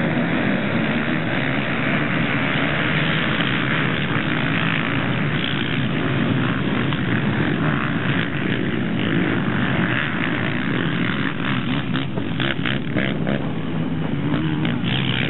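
A field of sport quads (ATVs) revving hard and pulling away together from a race start, their engines blending into one loud, steady din.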